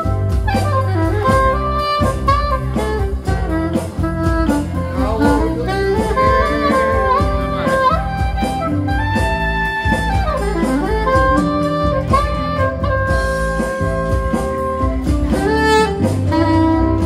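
Alto saxophone playing a jazz melody, accompanied by acoustic guitar over a steady beat.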